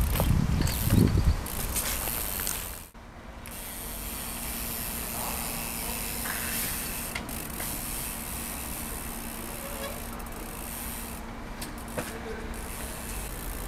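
Trials bicycle being ridden: heavy tyre thuds from hops in the first second or so, then the rear hub's freewheel ratchet ticking steadily as the bike coasts. A single sharp knock about 12 seconds in comes from a wheel landing on a wooden pallet.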